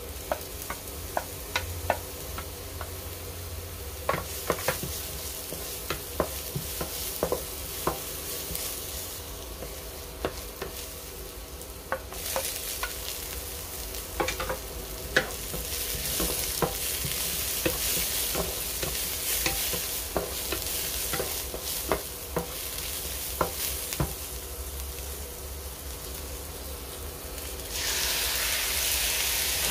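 Sliced onion, garlic and yellow bell pepper sizzling in oil in a stone-coated wok, with a wooden spatula stirring and tapping against the pan in frequent short clicks. Near the end raw chicken pieces go in and the sizzle turns louder.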